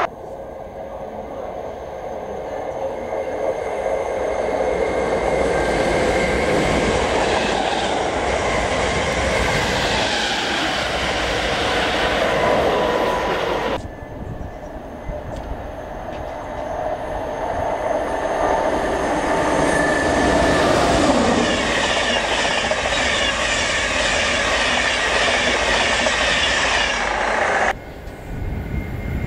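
Trains running through a station on an electrified main line: the noise of wheels on the rails swells as a train comes through. It cuts off abruptly about halfway, builds again, and breaks off near the end.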